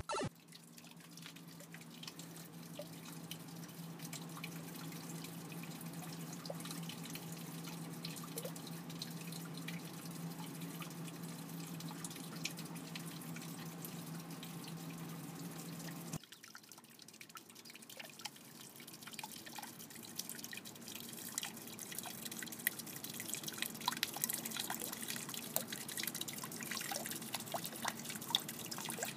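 Water dripping and splashing as a stream of drops falls into an aquaponics tub, with many small plinks over a steady trickle. A low steady hum sits under it for the first half and stops about halfway through.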